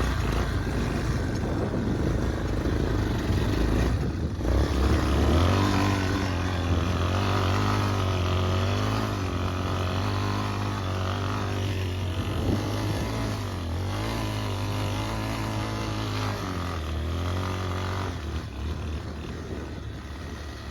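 Yamaha Warrior 350 ATV's single-cylinder four-stroke engine running under riding load, its pitch rising and falling repeatedly as the throttle is worked.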